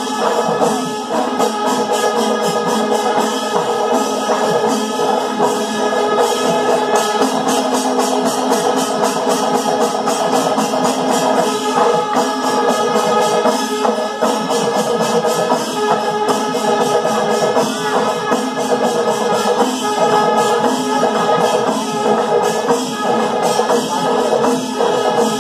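A Kerala chendamelam percussion ensemble playing continuously: rapid chenda drum strokes with ilathalam cymbals ringing steadily over them.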